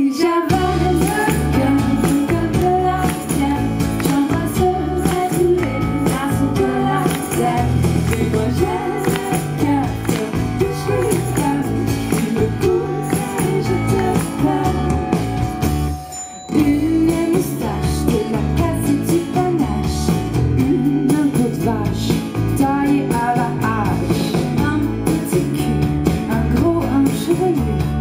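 Live pop song by a band with electric bass and tambourine, two women singing lead into microphones. The band stops for a moment about halfway through, then comes straight back in.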